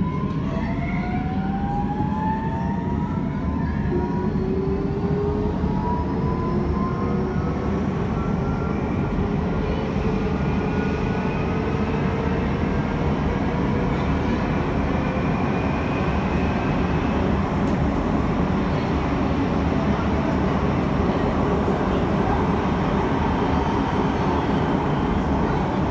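Electric metro train accelerating, heard from inside the car: the traction motor whine rises steadily in pitch for about the first seventeen seconds over a constant rumble of wheels on the rails. After that it runs on at speed with a steady rumble.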